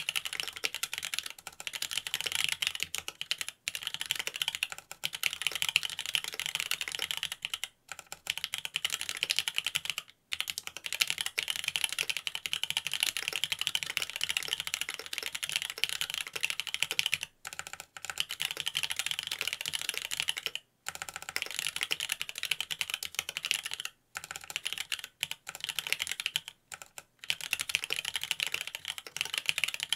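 Continuous typing on a Mont Cervin custom mechanical keyboard with Cherry Wyse Black switches in a carbon fibre plate and Key Kobo keycaps: a dense run of key clacks, broken by a few brief pauses.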